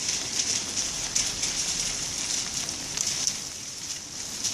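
Light rain falling: a steady hiss with many small irregular ticks of drops landing on wet ground.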